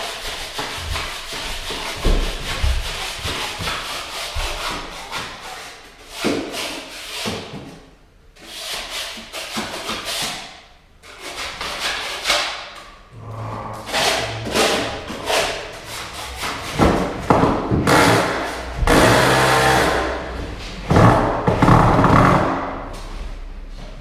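Hand work on wooden floorboards and battens: uneven scraping and rubbing strokes on wood with occasional knocks.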